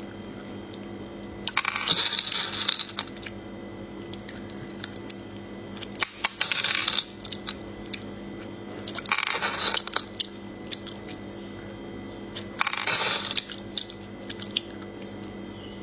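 Small sea snails being sucked out of their shells: four short, hissy slurps a few seconds apart, with light clicks between.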